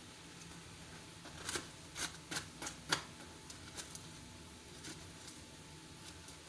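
Kitchen utensils being handled while spices are added to a bowl of chopped vegetables: a quick run of light clicks and taps, most of them between about one and three seconds in, with a few fainter ticks after.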